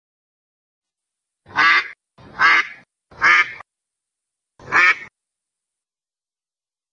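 Duck quacking: three quacks in quick succession, then a fourth after a short pause.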